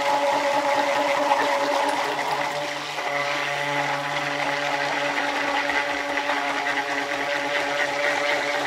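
Handheld stick blender running steadily in a small cup of cold-process soap batter: a steady motor hum over liquid churning as the batter is mixed to trace.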